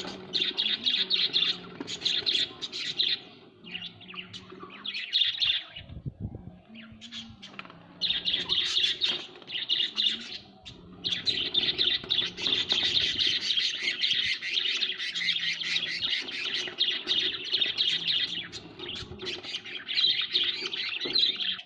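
Pet budgerigars chattering and warbling in a fast, near-continuous stream of high chirps, with short pauses about six and eleven seconds in.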